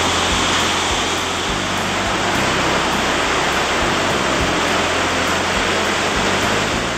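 Fast-flowing river rushing over rocks in white-water rapids, a loud, steady rush of water.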